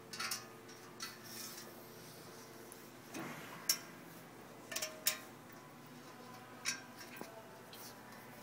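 Irregular clicks and knocks of hands handling an FB500 stitching-wire despooler ring while fitting a rubber band around it, about eight in all, the sharpest a little under four seconds in and about five seconds in.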